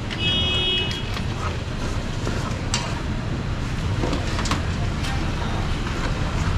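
Steady low rumble of street-market background and traffic, with a few sharp light clicks as plastic clamshell fruit boxes are handled, and a short high beep-like tone near the start lasting under a second.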